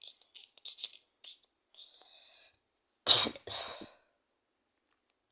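A person who is ill coughing twice, about three seconds in: one sharp, loud cough and then a weaker one. There is a short breath in shortly before, and faint whispery sounds at the start.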